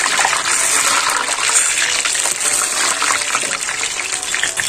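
Battered lotus stem fritters (nadru monje) deep-frying in hot oil, a steady sizzle with dense crackling.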